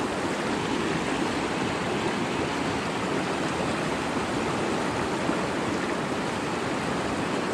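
Creek water rushing steadily over a low concrete dam and through the white water below it, an even unbroken roar.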